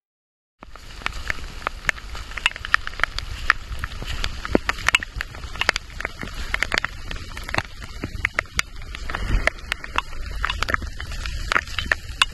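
Raindrops ticking sharply and irregularly on the camera and rain gear over a low rumble, starting abruptly about half a second in.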